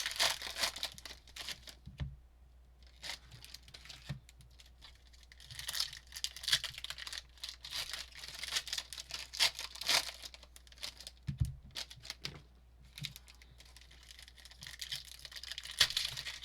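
Trading card pack wrappers crinkling and tearing open in bursts of crackly noise, with quieter gaps between and a few soft low thumps.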